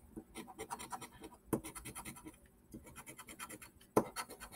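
Scratch-off lottery ticket being scratched: runs of quick scraping strokes, with louder scrapes about a second and a half in and about four seconds in.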